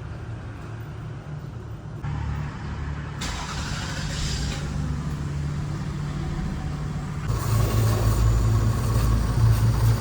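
Car engine running steadily with a low hum. The sound changes abruptly a few times and grows louder about seven seconds in.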